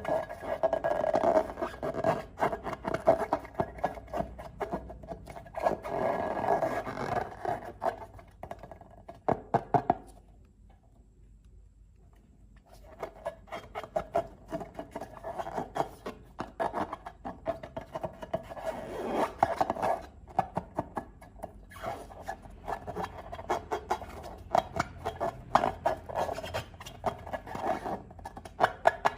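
Slime being stirred and squished, a dense run of sticky clicks and crackles with a scraping, rubbing edge. It stops for about three seconds about ten seconds in, then starts again.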